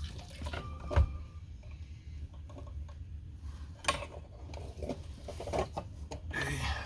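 Scattered light clicks and knocks of the old plastic fuel pump assembly being handled, with one sharper knock about a second in.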